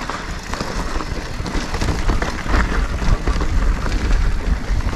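Mountain bike rattling over rough rock gardens: many quick knocks and clatters from the frame and tyres on rock. Wind on the microphone rumbles underneath and grows a little louder toward the end.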